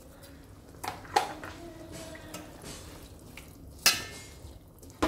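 Slotted steel spatula stirring thick prawn pickle in a metal pan, knocking and scraping against the pan with a few sharp clinks, the loudest about four seconds in with a short ring.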